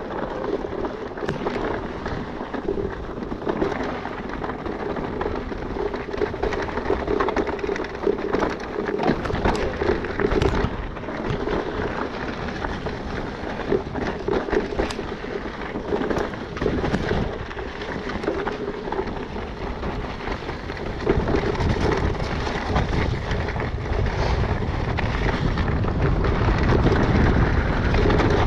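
Mountain bike riding fast down a rocky gravel trail: tyres crunching over stones and the bike rattling and knocking over bumps, with a low rumble of wind on the microphone that grows louder about two-thirds of the way in.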